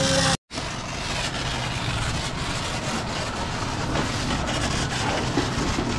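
Pressure washer running: a steady pump drone under the hiss of the water jet spraying the car. It starts after a brief break about half a second in.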